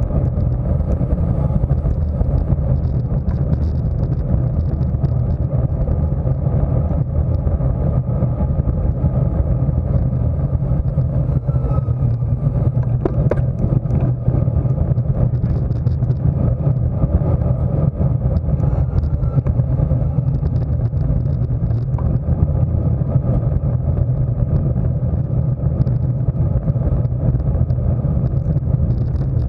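Steady wind rumble on the microphone of a bicycle-mounted camera, from a road bike riding at race speed.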